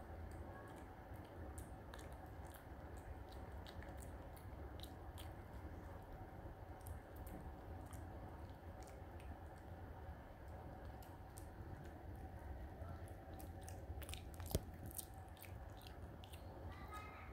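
Smooth-coat chihuahua gnawing a dental chew stick: faint chewing and biting with small scattered clicks of teeth on the chew, and one sharper click near the end.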